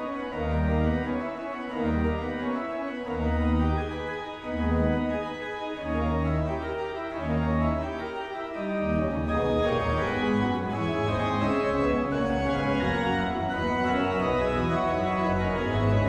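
Background music of sustained keyboard chords, with a bass note pulsing about once a second until about halfway through, then a fuller, continuous sound.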